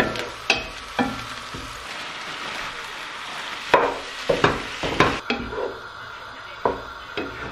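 Chopped onion and ground meat sizzling in a pot as a wooden spatula stirs them, with several sharp knocks of the spatula against the pot. The sizzle softens a little about two-thirds of the way through.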